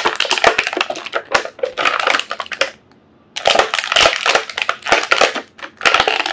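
Stiff plastic packaging crackling and crunching as the action figure is worked out of its tight-fitting tray, with a brief pause about halfway through.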